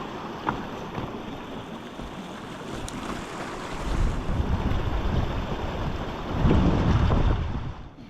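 River water running steadily, with gusts of wind buffeting the microphone that swell about four seconds in and again, loudest, around six and a half seconds in.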